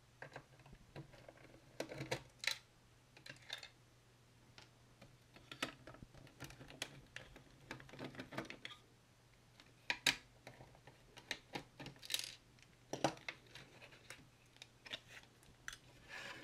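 Scattered small clicks, clinks and rattles of hands taking apart a Commodore C2N datasette: screws being worked out and the metal tape mechanism lifted out of its plastic shell. A few sharper clacks come about ten seconds in and again two seconds later.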